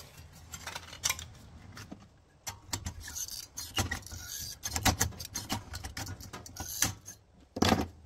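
Hands handling a cardboard tube: cardboard rustling, with scattered sharp clicks and metal clinks as locking clamp pliers are set on it. The louder knocks come near the middle and one just before the end.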